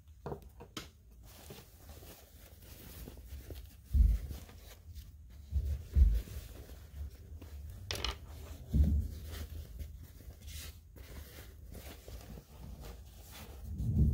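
Toy tent's cloth rustling and crumpling as it is handled, with several dull thumps and a few sharp clicks along the way.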